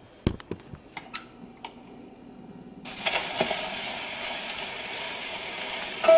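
A few sharp clicks and knocks as the portable gramophone's soundbox arm is swung over and lowered, then about three seconds in the needle drops into the lead-in groove of the shellac 78 and a steady surface hiss begins.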